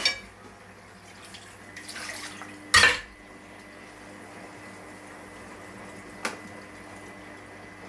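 Kitchen noises: a few sharp knocks and clatters, like crockery on a worktop, the loudest about three seconds in, over a steady low hum.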